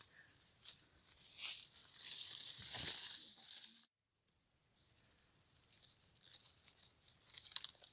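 Leaves and branches of an orange tree rustling and crackling as fruit is pulled off by hand, louder in the middle, then cut off suddenly.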